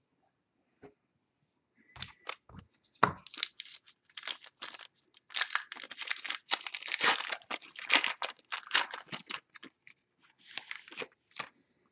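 Foil wrapper of a Plates & Patches football card pack being torn open and crinkled by hand. A few sharp knocks come about two seconds in, then a dense run of crinkling and tearing fills the middle, with a little more near the end.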